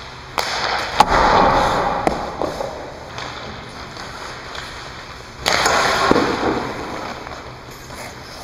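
Hockey skates carving and scraping on the ice in two long hissing surges, about half a second in and about five and a half seconds in. Sharp clacks of a TPS R8 hockey stick on the puck, the loudest about a second in, another about two seconds in and one near the end.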